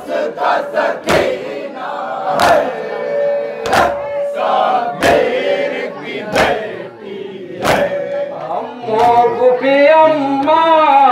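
Shia mourners beating their chests in unison (matam): six sharp slaps about 1.3 seconds apart, with the crowd chanting a noha between strokes. After about eight seconds the slaps stop and a male noha reciter sings alone through a microphone.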